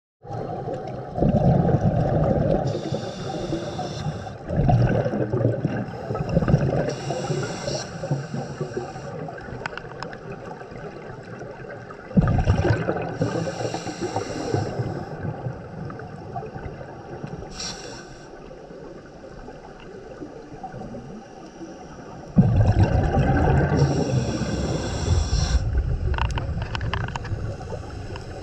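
A scuba diver breathing through a regulator underwater. A hiss on each inhale alternates with a gush of bubbles on each exhale, a few breaths in all, with quieter stretches between.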